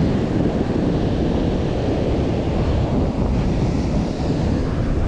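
Steady wind noise on the microphone over breaking ocean surf washing up the beach.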